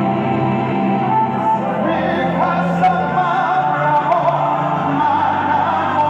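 Live gospel worship music: a man sings a long, wavering melody into a microphone over steady held instrumental backing.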